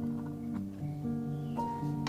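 Background music: a gentle plucked-string melody over held chords.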